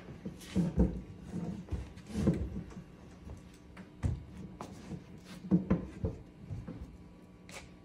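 Irregular knocks, thuds and scrapes on wood and objects, spaced a second or two apart with a few sharp clicks among them, over a faint low hum: object sounds in a free-improvised performance.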